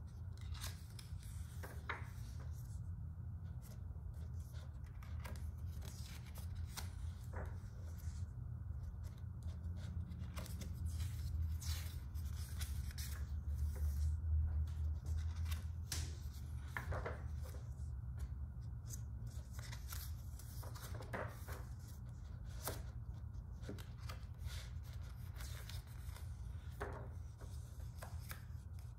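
Pages of a large art book being turned and handled by hand: scattered paper rustles and swishes of glossy pages sliding and flipping, over a steady low hum.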